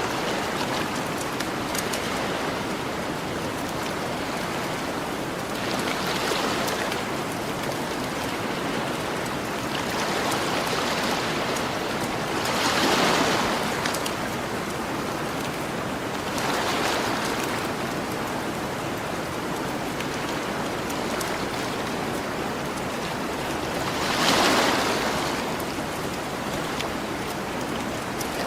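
Ocean waves washing onto a beach as a steady rush that swells every few seconds, the biggest surges about halfway and near the end, with a campfire crackling faintly.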